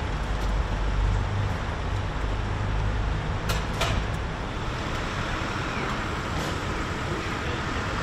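Steady city street traffic noise, with the low rumble of a passing vehicle that fades after about two seconds and two sharp clicks about halfway through.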